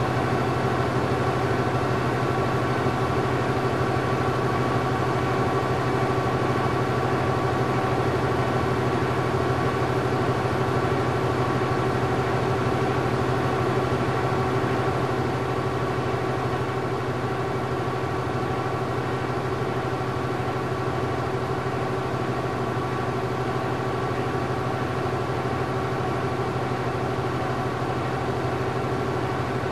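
Newspaper printing press running slowly, heard as steady machine room noise with several held tones over a dense mechanical rumble; it gets slightly quieter about halfway through.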